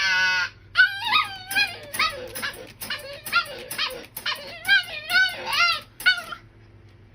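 A dog whining and yipping in a quick series of short calls that rise and fall in pitch, stopping about six seconds in.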